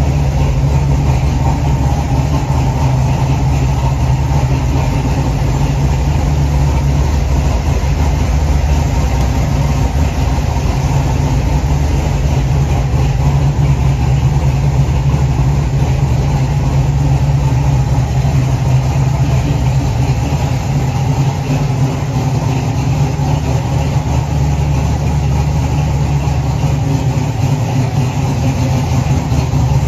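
The 1969 Chevrolet Camaro's 383 stroker V8 idling steadily.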